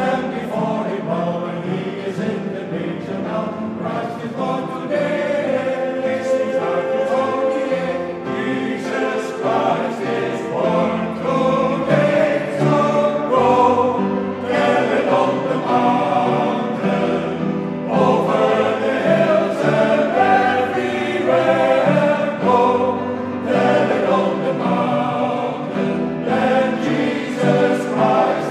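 Mixed choir of men's and women's voices singing a piece in several parts, in a large church.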